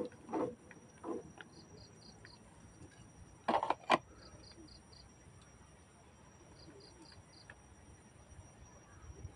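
Insects chirping in short trains of about four quick pulses every two to three seconds, over a steady high insect drone. Two sharp knocks about four seconds in are the loudest sounds.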